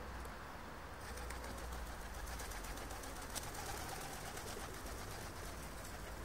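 Tame domestic pigeons close by, with faint cooing, scattered light clicks and a wing flap a little past the middle, over a low steady rumble.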